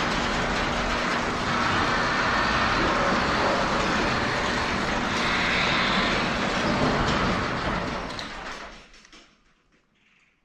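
A loud, steady machine noise with a low hum in it, which stops about nine seconds in.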